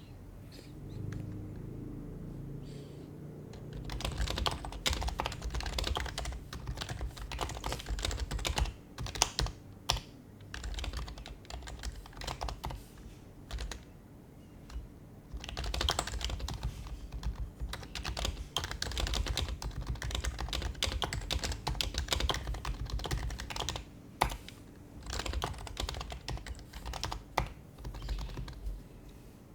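Typing on an HHKB Professional HYBRID Type-S keyboard, whose silenced Topre switches give soft, muted keystrokes. The typing comes in quick runs with a few sharper strokes, and it pauses briefly at the start, about two-thirds of the way through, and near the end.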